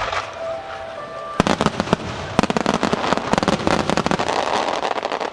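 Rapid-fire barrage of aerial fireworks shells, starting about a second and a half in with many sharp bangs a second. Near the end the bangs thin out and a steady rushing noise remains.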